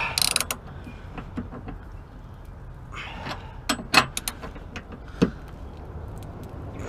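Hand ratchet tightening a tow hook bolt into the car's body: irregular metallic clicks and clinks, with a cluster of sharper knocks around four seconds in and another about five seconds in.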